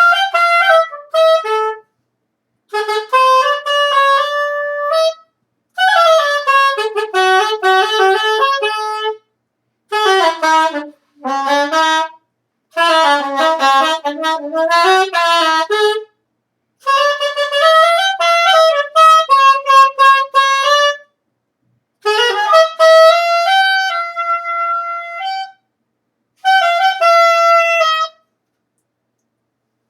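Saxophone played solo: about eight short melodic phrases of single notes, each broken off by a second or so of silence, several ending on a held note.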